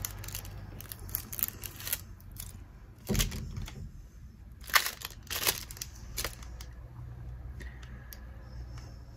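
Plastic wrapping crinkling and Pokémon trading cards being handled as a deck is unwrapped: scattered short crinkles and clicks, with a dull knock about three seconds in.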